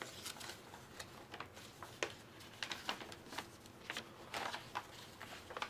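Irregular crinkles and rustles of a thin, cheaply made game playmat being unfolded and handled.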